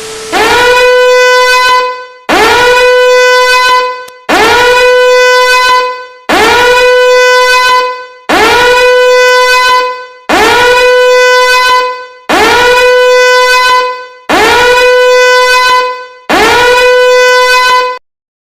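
Electronic alert horn sounding nine identical blasts, about one every two seconds. Each blast swoops up in pitch at its start, then holds a steady, buzzy tone. The sound cuts off sharply after the last blast.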